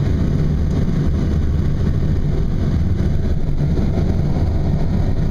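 Steady rush of air around a glider's cockpit canopy in flight, heard in the cabin as an even, loud low rumble.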